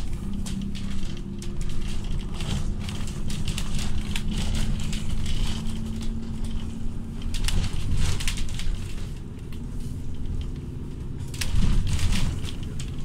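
Cabin noise of a moving road vehicle: low engine and road rumble with a steady hum that fades out about seven and a half seconds in, over frequent light rattles and clicks. A louder surge of low rumble comes near the end.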